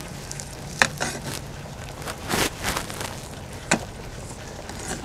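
Meat cleaver cutting cooked cow feet in a soup bowl: two sharp knocks about three seconds apart, with a softer noise between them.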